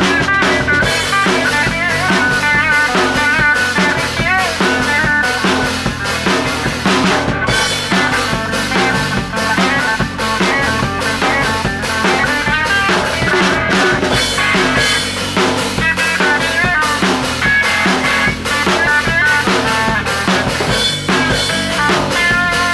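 A band jamming a loose rock improvisation: a drum kit with cymbals keeping a steady beat under guitar, with bent, wavering lead notes, and bass.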